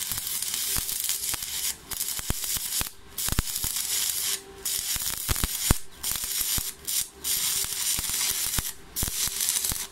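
Stick-welding arc from a 2.4 mm Powerfix electrode at 120 A on a Stahlwerk AC/DC 200 inverter welder, laying a butt weld in 4 mm flat steel: a steady crackling hiss with sharp pops, dipping briefly several times as the arc length changes.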